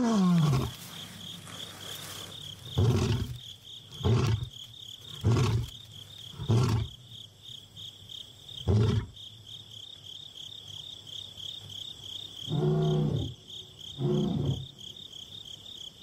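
Young male lion roaring to call his separated brother: a long roar falling in pitch at the start, then a run of short deep grunts about a second apart that grow more spaced out, and two longer calls near the end.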